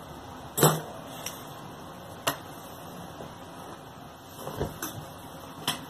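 A few small, sharp clicks and taps as tools and small parts are handled and set down on a wooden work board, over a steady low hiss.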